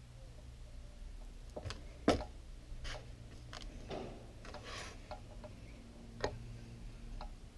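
Small sharp clicks and taps of tiny screws and small parts from a Lomography LC-A+ camera being handled and set down on a tabletop. The loudest knock comes about two seconds in and another sharp one just after six seconds, with a short rustle of hands between them.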